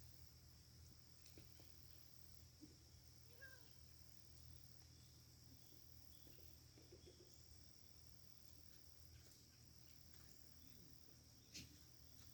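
Near silence: faint outdoor background with a steady high-pitched drone and a few faint small noises, and one short click near the end.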